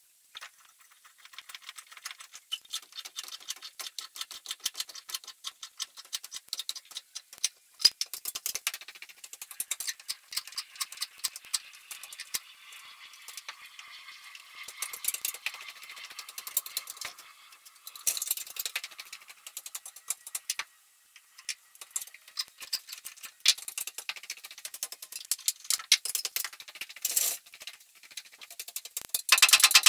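Jobsite sounds of roof framing work sped up eightfold, heard as a rapid stream of high-pitched clicks, ticks and rattles with no low end.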